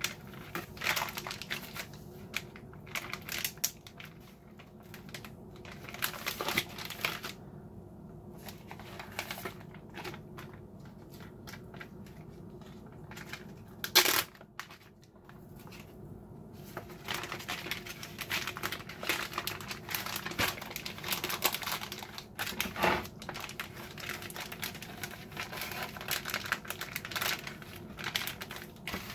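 Plastic zipper-seal freezer bags crinkling and rustling as they are handled, opened and pressed flat, in irregular crackles with a sharp snap about halfway through.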